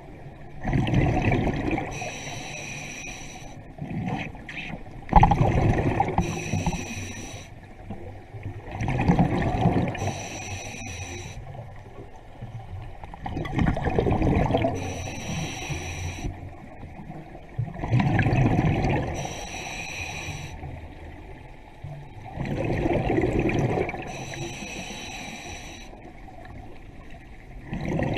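Scuba diver breathing through a regulator underwater: slow, even breaths, each drawn in with a hiss and let out as a loud gurgling rush of bubbles, about every four and a half seconds.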